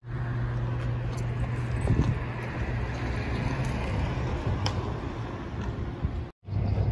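Steady low hum of a vehicle engine running, over general street noise. It drops out for a moment near the end.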